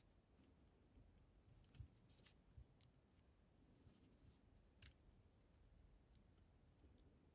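Faint, scattered clicks of small metal parts and a screwdriver being handled while grub screws are taken out of a lock cylinder, a few isolated ticks several seconds apart.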